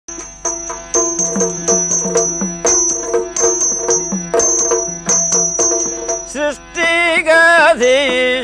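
Yakshagana music: a quick run of drum strokes over a steady held drone, with a high ringing metallic tone, then a voice begins singing about six seconds in.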